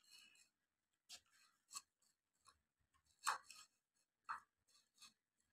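A bully kutta dog chewing chicken from its bowl: a few faint, separate crunches at irregular intervals about a second apart, the loudest about three seconds in.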